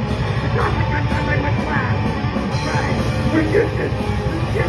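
Loud rock music with distorted guitar and drums, possibly between sung lines.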